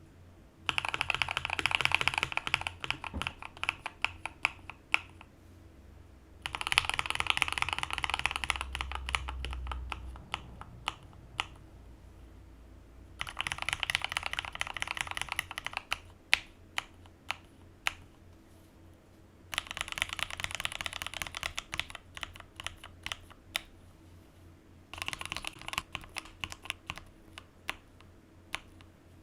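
KBD75V2 mechanical keyboard with lubed and filmed linear switches in an aluminum plate and PBT keycaps, typed on fast in five bursts of rapid keystrokes with occasional single key presses in the pauses between them.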